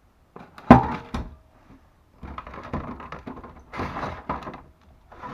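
A loud knock, then a second lighter one, followed by a few seconds of irregular clattering and scraping: the mini electric hoist's detached housing being set down and its parts handled during disassembly.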